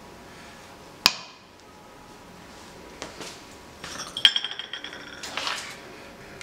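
Ink bowls and pots knocking and clinking as they are handled and set down. A single sharp knock comes about a second in, then a quick run of ringing clinks about four seconds in, followed by a short scuffing noise.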